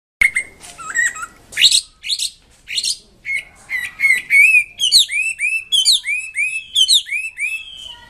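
Chinese hwamei singing: a varied run of loud, clear whistled phrases that about five seconds in settles into a fast series of repeated arched notes, about three a second.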